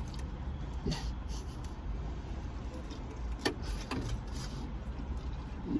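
Steady low rumble of a car's cabin, with a few light clicks and taps about a second in and twice more past the middle.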